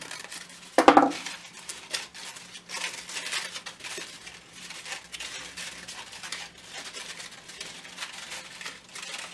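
Metal scissors set down on the table with a clink about a second in, then crepe paper rustling and crinkling as the petals are worked open by hand.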